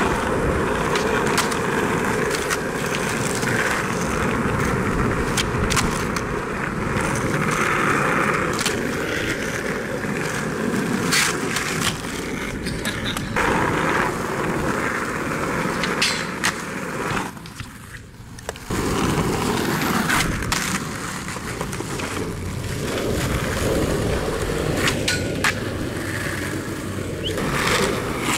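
Skateboard wheels rolling steadily over asphalt. The board makes several sharp clacks as it is popped and landed during tricks, with a brief lull a little past the middle.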